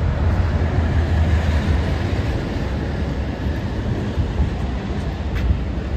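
A train passing, a steady low noise with no change in it.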